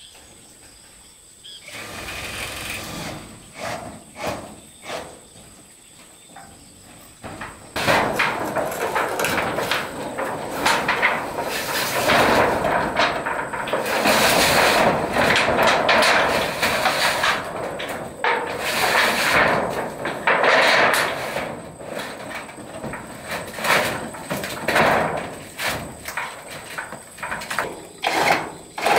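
Corrugated steel roofing sheets being slid and dragged across the roof frame, scraping and rattling, with many clanks and knocks on the sheet metal. It starts quietly and turns loud and busy from about eight seconds in.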